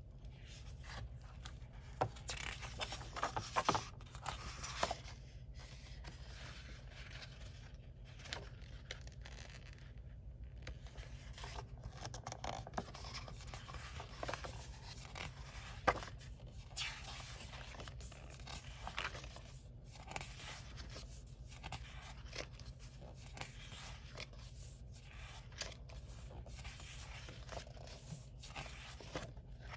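Pages of a hardcover sticker book being turned and smoothed by hand: paper rustling and sliding, with a few sharp taps. The busiest rustling comes a few seconds in, and one sharp tap stands out about halfway through.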